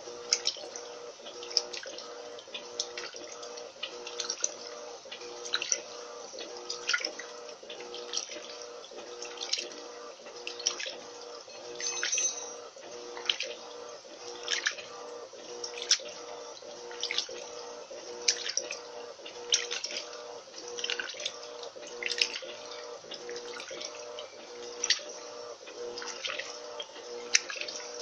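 Electrolux Turbo LT12B top-loading washing machine agitating a load at its high water level: a steady hum under rhythmic sloshing and splashing of water and clothes, about once every second and a quarter.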